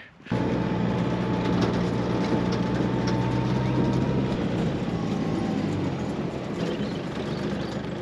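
A steady engine-like rumble with a low hum, starting abruptly; the lowest part of the hum stops about halfway through while the rumble carries on.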